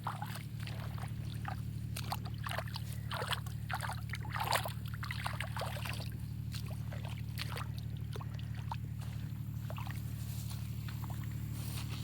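Water sloshing and splashing in short irregular spurts, busiest in the first half, over a steady low hum.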